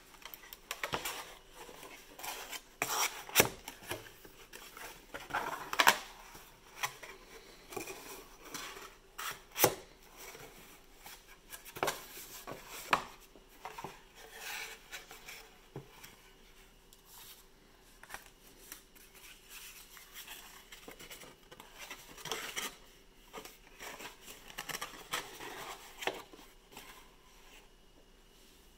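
White paperboard packaging being folded and fitted together by hand: sharp snaps and taps of card being creased and pressed into place, with rustling and scraping of card against card and the table. The loudest snaps come in the first half, softer handling after.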